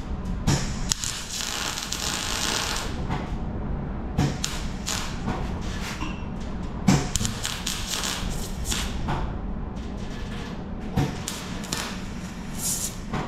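MIG welder crackling and hissing in several bursts of one to three seconds, tack-welding a new steel front wing to the inner wing of a classic Mini, over a steady low hum.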